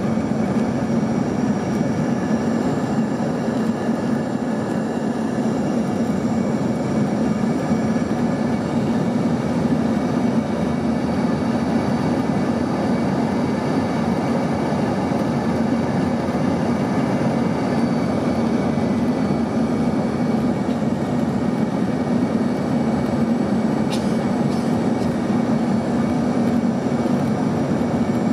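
Steady cabin noise inside an Embraer ERJ-135 jet on final approach: rushing air and the low, even hum of its rear-mounted Rolls-Royce AE 3007 turbofans.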